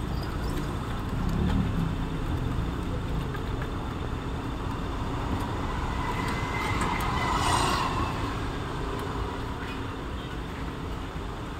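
Steady street-traffic noise, with a motor scooter passing close by about seven seconds in, its engine swelling and fading away.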